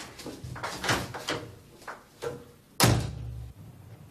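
A door slams shut with a heavy thud about three seconds in, preceded by a few light clicks and knocks.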